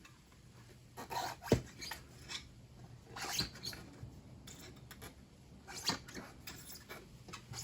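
Steel tyre levers clinking and scraping against a motorcycle rim as the bead of a tubed tyre is levered back on, with a sharp metal knock about one and a half seconds in.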